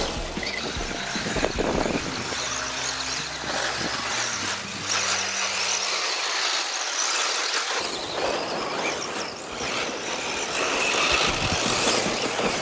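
Several vintage 2WD electric RC buggies with 540 brushed motors racing together: a shrill whine of motors and gears that rises and falls in loudness as the cars pass.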